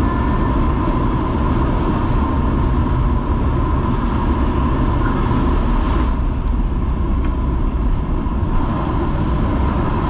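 Loud, steady engine drone and wind rush inside a small jump plane's cabin with the exit door open, with a steady whine running through it.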